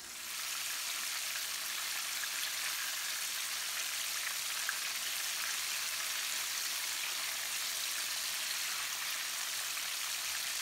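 Flour-coated bone-in chicken drumsticks and wings deep-frying in vegetable oil in a deep cast iron skillet. The oil gives a steady sizzle, with a faint crackle now and then.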